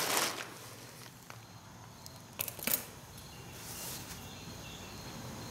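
Faint workshop room noise with two brief sharp knocks about two and a half seconds in.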